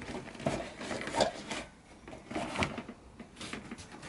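Objects being handled: irregular rubbing and scraping with a few light knocks, the loudest a little over a second in.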